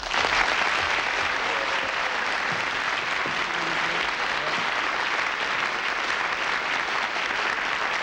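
Studio audience breaking into steady applause.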